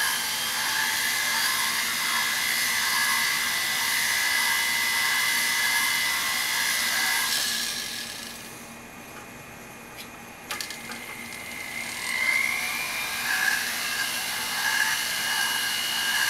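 Jeweller's flex shaft running a bur inside a blue carving-wax ring: a steady high whine with a grinding hiss. About halfway through, the motor eases off for a few seconds, with a couple of light clicks. It then comes back up to speed with a rising whine.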